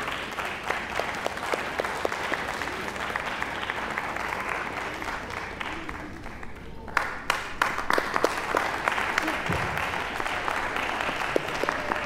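Audience applauding steadily, dipping slightly about six seconds in and then picking up again with sharper claps.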